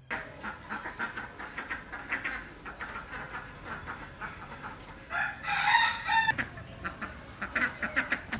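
Chickens clucking in short repeated calls, with a rooster crowing for about a second just past the middle.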